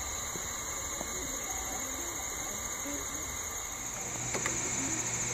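Stepper motors of a home-built laser engraver and its rotary turntable whining in short tones that jump from pitch to pitch as the laser head and toothpick move during engraving, over a steady high whine. About four seconds in a low hum comes in.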